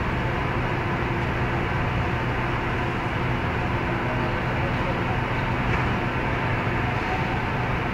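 Steady mechanical hum and hiss at an even level, with a constant low drone underneath.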